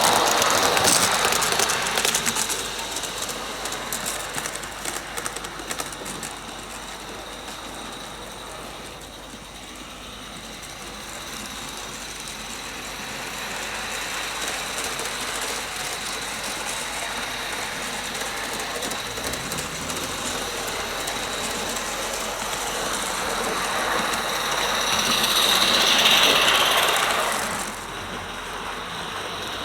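A Roundhouse Bertie-class 16mm-scale live steam locomotive running with a train of coaches: rapid exhaust chuffs and the clicking of small wheels on track. It is loud to begin with, fades off as the train goes away, and swells again as it passes close about 26 seconds in, then drops back abruptly.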